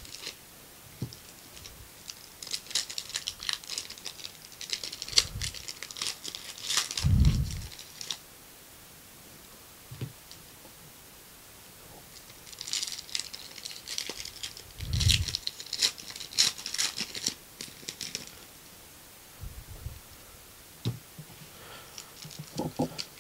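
Foil trading-card pack wrappers being torn open and crinkled by hand, in two long spells of crinkling with quieter stretches between, and a few low thumps as the packs and cards are handled.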